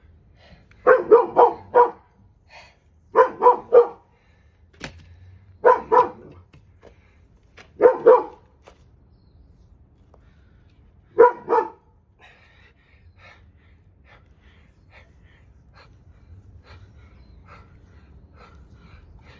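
A dog barking in five short bursts of two to four barks each over about ten seconds, then stopping; faint scattered ticks follow.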